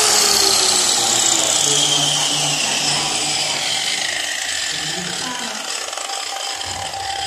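Electric angle grinder with a sanding disc spinning down after the trigger is released, its whine falling slowly in pitch as it fades.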